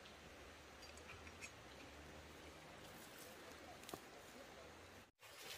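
Near silence: faint outdoor background hiss with a couple of soft clicks.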